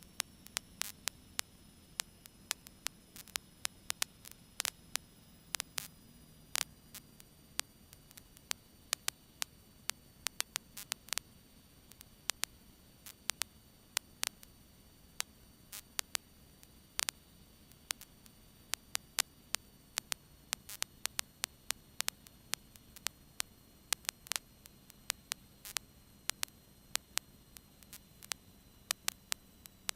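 Electrical static on a cockpit radio and intercom audio feed: irregular sharp clicks and crackle, several a second, over a faint steady hiss and hum.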